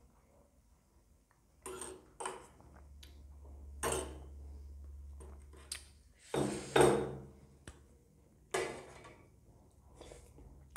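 Close-miked eating sounds: about six short sounds of sipping and chewing noodles and soup from a metal spoon, the loudest about two thirds of the way through, with a few light spoon clicks. A faint low hum runs for a few seconds in the middle.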